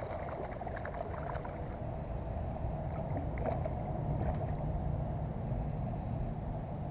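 Hooked largemouth bass splashing and thrashing at the water's surface beside a kayak as it is reeled in, a few brief splashes over a steady low rumble.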